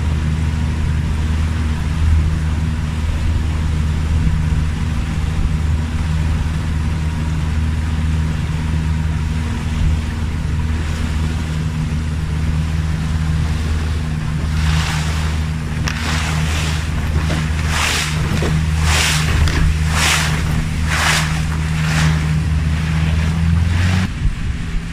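Boat engine running at a steady speed, a low even drone. From a little past halfway, water splashes in regular whooshes about once a second, and the engine sound cuts off just before the end.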